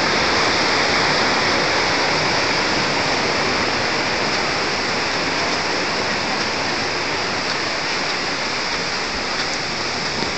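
Steady rushing of river water: an even, unbroken hiss that eases slightly over the seconds.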